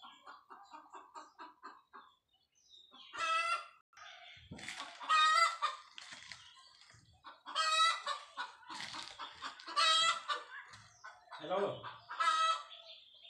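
Domestic chickens clucking: a run of quick soft clucks at the start, then several loud, high-pitched calls through the rest.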